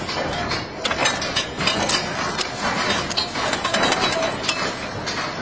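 Electroslag pressure welding clamp on column rebar being worked by hand: irregular metallic clicks, clinks and ratcheting over a steady noisy background.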